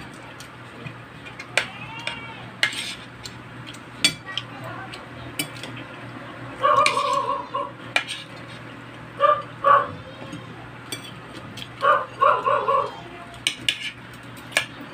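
A spoon and fork clink and scrape against a ceramic plate in many light, irregular clicks. Three louder bursts of a pulsing pitched sound stand out, about a third, two thirds and four fifths of the way through.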